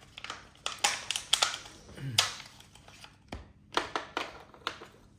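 Scattered sharp plastic clicks and clatters of a typewriter-style Bluetooth keyboard being handled while fresh batteries are tried in it, with a brief murmured voice about two seconds in.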